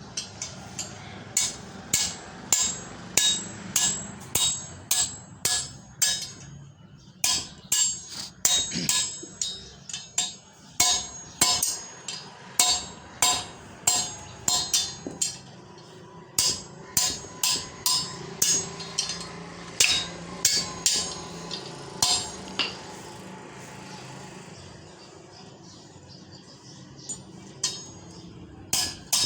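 Hand hammer striking a steel rod, repeated sharp metallic blows that each ring briefly, coming about one to two a second with a short lull near the end.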